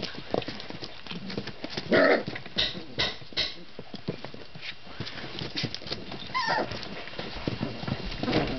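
A litter of Weimaraner puppies scrabbling about on newspaper and a tarp, with claws clicking and paper rustling throughout. A puppy gives a short cry about two seconds in, and another gives a cry that falls in pitch about six and a half seconds in.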